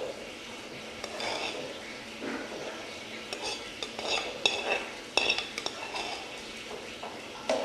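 Metal serving utensil clinking and scraping against a dish while spreading a fried-onion and raisin topping over rice, with a run of sharp clinks in the middle.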